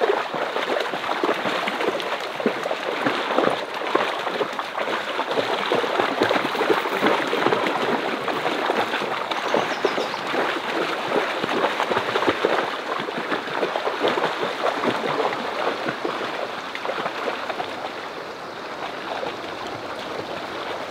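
Water splashing as a man and several Rottweilers wade through a shallow, rocky creek, over the rush of the flowing stream. The splashing eases off a little near the end.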